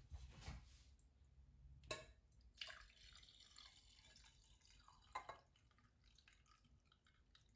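Onion water poured from a stainless steel saucepan into a drinking glass: a faint trickle lasting a couple of seconds, with a light knock just before the pour starts and another as it ends.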